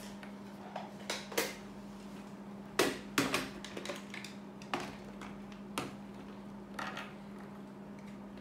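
Irregular light clicks and taps of small plastic toy pieces being handled on a tabletop, the loudest about three seconds in, over a low steady hum.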